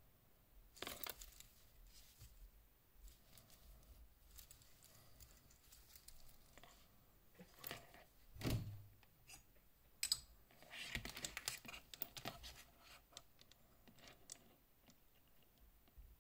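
Quiet handling noise of a steel-bracelet wristwatch held in cotton gloves: rustling and scattered small clicks and taps, with the sharpest click about ten seconds in and a run of rustling just after.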